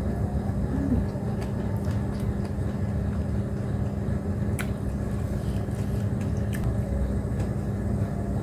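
A steady low hum and rumble with a constant pitched tone, and a few faint clicks on top.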